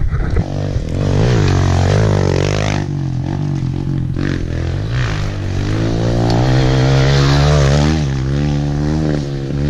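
Small Kawasaki KLX four-stroke single-cylinder pit bike engine under load, its pitch rising and falling repeatedly as the throttle is worked along the trail.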